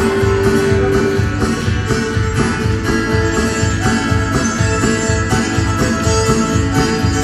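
Fiddle and guitar playing a lively dance tune for jigging, with a steady, quick beat.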